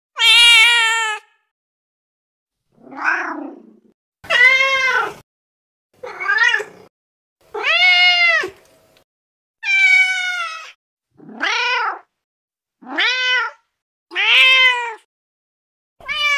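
Recorded domestic cat meows played back one after another from a cat-sounds app: about ten separate meows, each under a second long and each a different cat's call, varying in pitch, with clean silent gaps between them.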